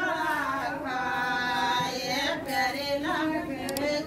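Women singing a Rajasthani folk song, with long drawn-out notes.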